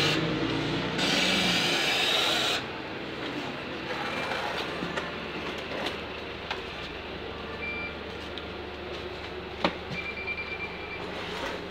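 Volvo single-deck bus standing at a stop with its doors open: a loud burst of air hiss in the first couple of seconds, then the engine idling with a steady low hum. Scattered clicks, one sharp knock near the end and a few short high beeps come through the hum.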